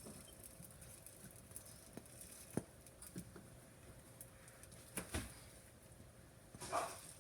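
Faint scattered taps and clicks of kitchen items being handled, with a short louder rustle near the end.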